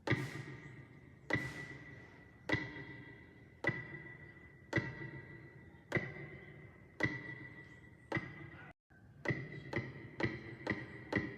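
A percussive music loop: a struck, ringing wood-block-like note repeating about once a second, each hit dying away. After a brief dropout about nine seconds in, the hits come roughly twice as fast.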